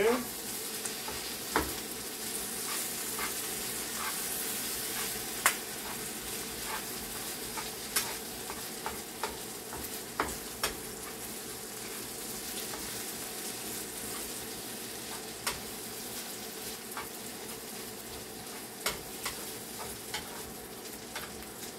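Crushed boiled chicken frying in hot oil with onion, garlic, ginger and chili powder: a steady sizzling hiss with scattered sharp clicks as it is stirred in the pan.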